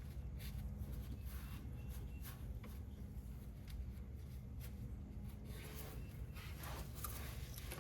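Faint rustling and light clicks of someone moving and handling things, over a low steady hum; the rustling gets busier near the end.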